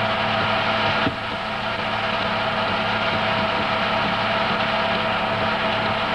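Steady mechanical whirr and hiss with a low hum, typical of a movie projector running while silent film plays. A single click about a second in, after which the sound drops slightly in level.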